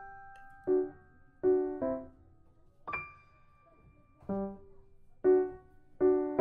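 Background music: a slow piano tune of single notes and chords, roughly one every second, each ringing and fading.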